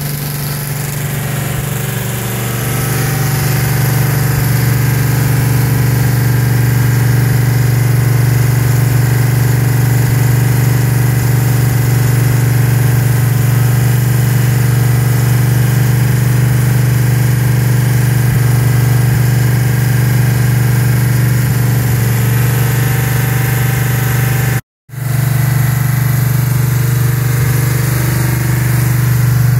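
Ford 428 Cobra Jet big-block V8 running steadily above idle on an engine run stand during its break-in run, exhausting through headers and short mufflers. The engine note gets a little louder about three seconds in and breaks off for a moment near the end.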